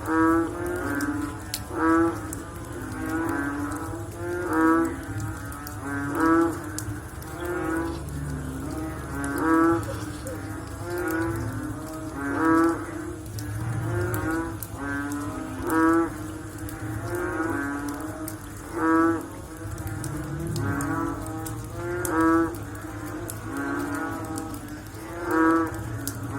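A chorus of frogs croaking after rain. A loud, low croak repeats about every second and a half, over many overlapping calls from other frogs.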